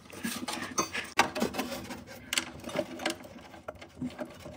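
Irregular small metal clicks and clinks of bolts and washers being handled and fitted into the fairing's lower support bar.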